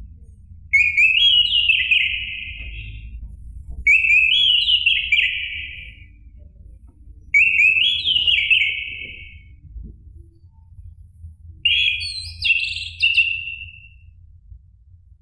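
Orange-headed thrush singing: four rich, warbled whistled phrases, one about every three and a half seconds.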